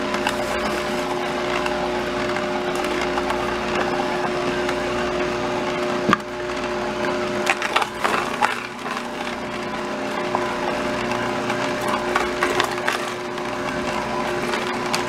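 Electric juicer running: a steady motor hum under continuous crackling and crunching as fruit and vegetables are ground. A few sharper cracks come about six seconds in and around eight seconds.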